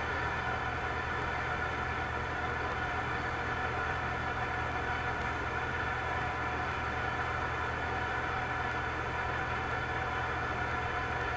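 A machine running with a steady whirring hum, several even tones held without change.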